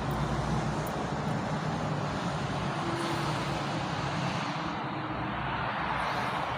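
Steady rumble of road traffic, with no distinct knocks or clanks.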